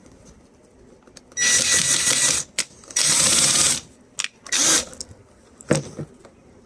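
Power drill driving a trim screw in two short bursts of about a second each, with a thin whine in the first, followed by a few sharp clicks and knocks.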